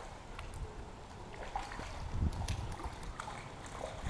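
Small boat sitting on calm water: a low, uneven rumble of wind on the microphone with faint water sloshing, and scattered light clicks and knocks from the boat and tackle.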